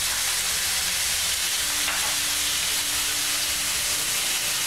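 Pieces of hake sizzling in hot oil in a frying pan, a steady hiss.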